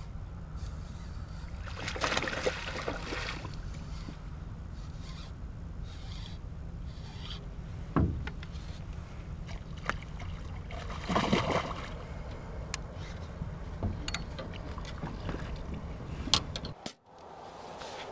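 A hooked bass splashing at the surface beside a fishing boat as it is reeled in, in two bouts of splashing, over a steady low hum. A single knock comes partway through, and near the end there is brief clattering before the hum cuts out.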